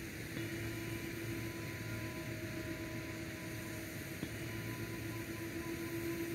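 Steady hiss with a low, even hum and faint steady tones underneath; no distinct event stands out.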